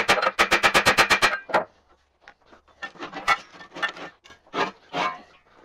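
Fast run of hammer taps, about eight a second, driving a steel bar against the edge of a hammer mill's steel screen, each blow ringing metallically. After a pause, scattered metal knocks and clanks as the loosened screen is worked out of the mill housing.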